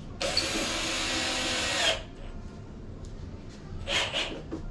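Power drill running for about a second and a half while driving a screw, then stopping abruptly.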